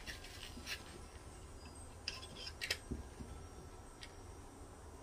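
Faint, scattered small clicks and handling noises from a hot glue gun being held and its trigger squeezed; the gun is unplugged.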